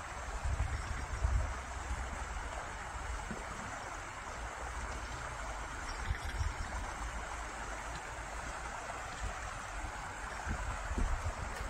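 Small stream running and gurgling steadily, with a few low rumbles on the microphone near the start, about six seconds in, and near the end.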